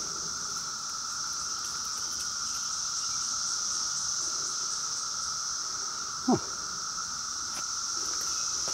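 Steady chorus of summer insects, a high-pitched buzzing in two bands. About six seconds in, a short, loud sound falls sharply in pitch.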